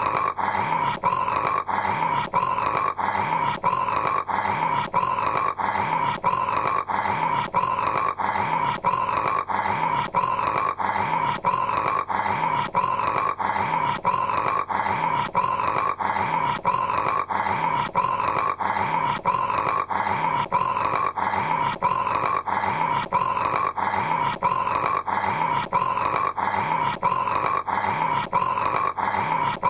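A man snoring, in a short throaty snore that repeats steadily nearly twice a second with a brief break between repeats, like a short clip of snoring played in a loop.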